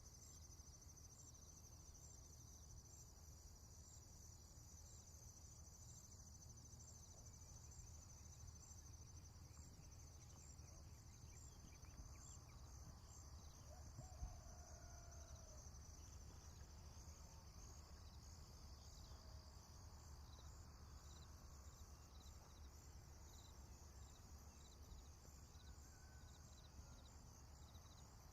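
Faint rural morning ambience: insects chirping in a steady, evenly pulsing high band over a low background rumble. A few distant bird calls come through faintly, with a single soft click about halfway.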